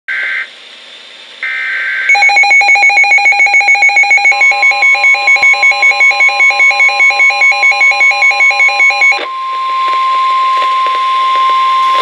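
Midland weather radio receiving a NOAA Weather Radio alert. It opens with two short two-tone SAME data bursts, then the radio's own alert beeps rapidly, about five pulses a second, for some seven seconds. The steady 1050 Hz warning alarm tone starts about four seconds in and carries on alone after the beeping stops.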